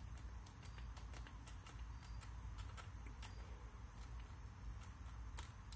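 Faint, irregular small clicks and ticks of a screwdriver bit working the rear trigger-guard screw of a double-barrel shotgun, over a low steady hum.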